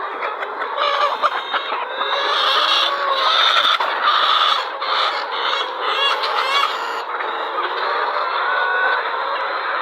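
A large flock of poultry clucking and calling, many birds at once with overlapping calls.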